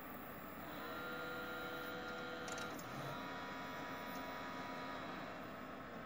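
Desktop PC running as it boots with one memory stick removed: fans whirring with a steady whine that comes in about a second in and shifts pitch about three seconds in. No error beeps sound, the sign that the faulty memory stick is out and the machine is starting normally.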